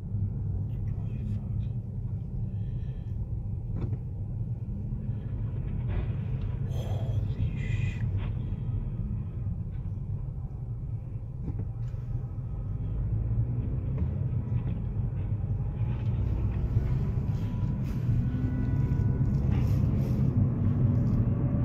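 Steady low road and engine rumble heard inside a moving car's cabin, growing a little louder in the second half.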